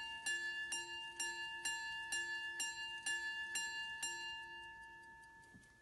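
Minute repeater pocket watch striking its gongs with its small hammers: about nine evenly spaced strikes, roughly two a second, each ringing on. The strikes stop about four seconds in, and the ringing dies away.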